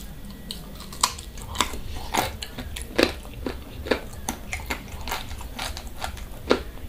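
A person chewing food close to the microphone: an irregular run of short, wet mouth clicks and smacks, two or three a second.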